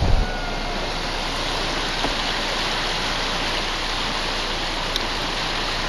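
Floodwater rushing past a river bank as a steady, even wash of noise, with one faint click near the end.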